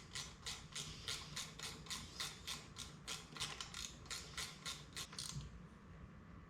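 Ratchet wrench clicking at about four clicks a second as a bolt is tightened down, stopping a little over five seconds in.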